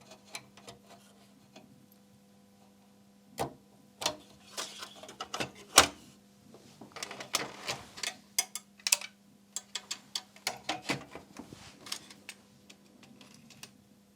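Irregular clicks and knocks of hands and tools working on an opened Sony MiniDisc deck's plastic mechanism, with a faint steady hum underneath.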